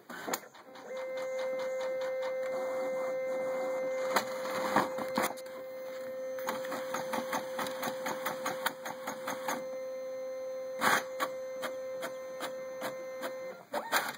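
Brother MFC-J825DW inkjet all-in-one running a black copy: a steady mechanical whine with frequent clicks and ticks from the paper feed and print mechanism, and a louder whirr about eleven seconds in as the printed sheet feeds out.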